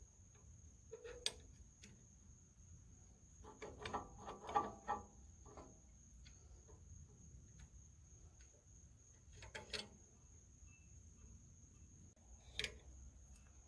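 Faint metal clinks and knocks from a shop-built gib key puller being fitted and adjusted against the flywheel hub of an International Type M engine, set up to draw a stuck gib key. A quick run of several clinks comes about four seconds in, with single knocks about a second in, around ten seconds and near the end.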